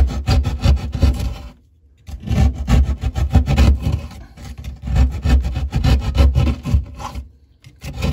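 Utility knife scraping the cut end of an ABS plastic drain pipe in quick, repeated strokes, cleaning the edge so a fitting can be glued on. The strokes come in two runs, with a short pause just under two seconds in and another near the end.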